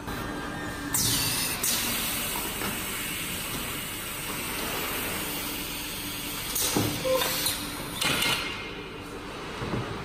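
Short-cycle melamine hot press line running with a steady machinery hum. Sharp hisses come about a second in and twice more later.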